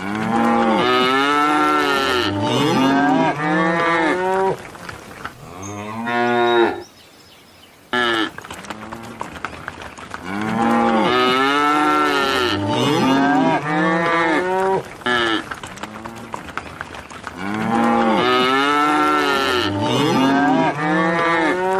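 Several cattle mooing at once, with long, overlapping calls that rise and fall in pitch. There is a short near-silent break about seven seconds in, and then the chorus of moos resumes.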